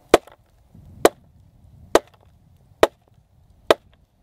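Hand-held stone hammer striking a red-hot chunk of iron bloom on a wooden block: five sharp knocks, a little under a second apart.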